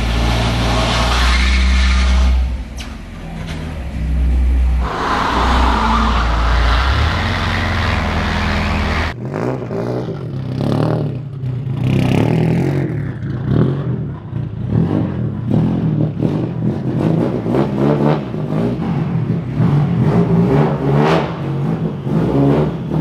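A Nissan SR20 engine runs hard on a chassis dyno with a loud, steady low drone that dips briefly twice. After about nine seconds a turbocharged SR20DET in a 180SX drift car idles and is revved in short blips as it drives in.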